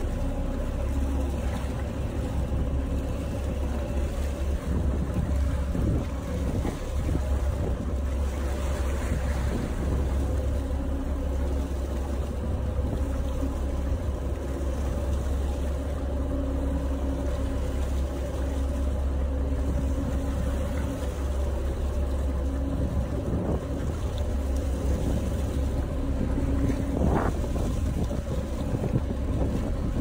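Boat engine running with a steady low rumble and a constant hum, with wind buffeting the microphone and water rushing past the hull.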